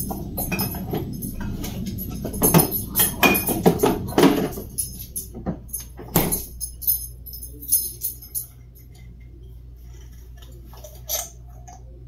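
Bottles and jars clinking and knocking in a refrigerator as things are moved about, ending in a heavy knock about six seconds in, likely the fridge door shutting.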